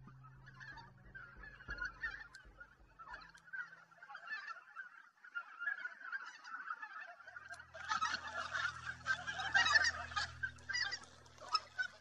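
A large flock of wild geese, mostly greater white-fronted geese, calling continuously in an overlapping chorus of high yelping honks. The chorus grows denser and louder from about eight seconds in.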